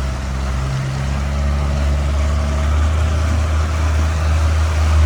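Pontoon boat's outboard motor running at low speed, a steady low drone. Its note shifts about a second in and again near three seconds.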